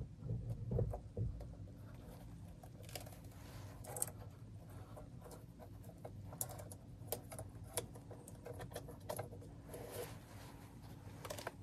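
Faint, scattered small clicks and scrapes of a 2016 Ford Explorer's loosened steering wheel and its wiring being handled as the wheel is worked off the steering column.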